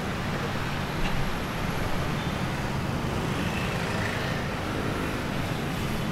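Street traffic: car and motorcycle engines running and passing in a steady rumble.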